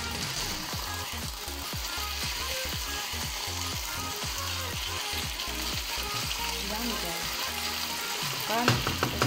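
Rice noodles and vegetables sizzling in a hot frying pan, stirred and turned with a wooden spatula, with a steady hiss and short scraping knocks. A brief louder noise comes near the end.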